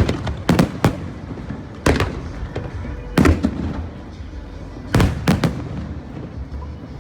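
Aerial fireworks shells bursting: about eight sharp bangs at uneven intervals, several in quick pairs, each trailing off in a low rumbling echo.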